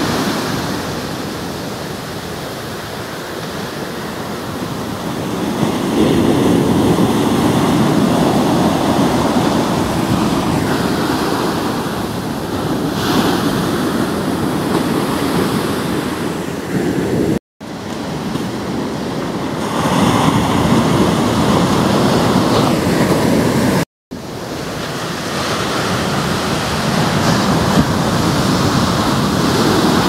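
Heavy shorebreak waves crashing and washing up the sand, in a steady roar that swells as each set breaks. Twice, past the middle, the sound cuts out for a split second.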